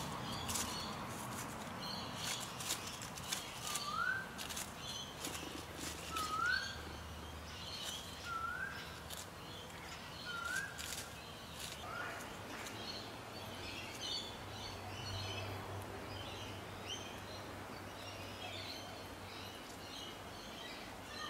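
Birds calling outdoors. One bird repeats a short rising whistle about every two seconds, five times, in the first half, while small birds chirp high and busily throughout. Dry rustling clicks sound through the first half.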